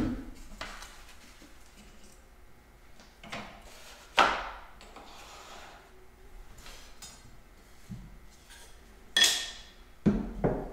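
Wooden pieces and tools being handled and set down on a wooden workbench: scattered knocks and clatters, the sharpest about four seconds in and a ringing knock about nine seconds in, then two quick knocks near the end as a metal hand plane is set down.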